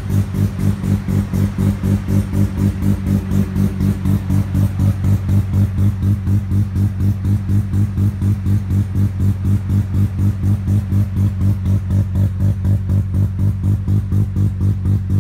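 Bridgeported Mazda 13B rotary engine of an FD RX-7 idling through a 70 mm stainless-steel exhaust. It runs at a lumpy, pulsing idle of about four beats a second, the choppy idle typical of a bridgeport rotary, and holds steady without revving.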